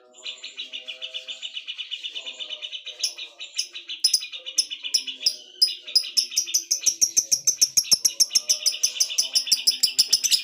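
Songbirds singing together: a fast, steady trill of rapidly repeated notes throughout, joined about three seconds in by sharp high chirps that come quicker and louder toward the end, over fainter lower calls.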